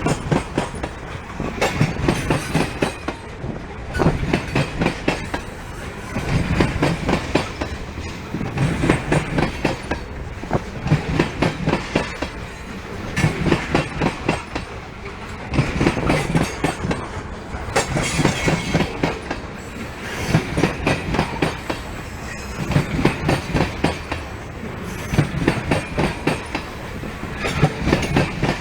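Loaded ethanol tank cars of a freight train rolling past, their wheels clicking over the rail joints in groups that repeat about every two seconds as each car goes by.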